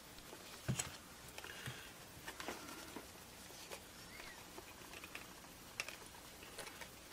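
Plastic case of a Kaiweets HT118A digital multimeter being handled and turned over: a knock about a second in, then scattered faint clicks and rubs.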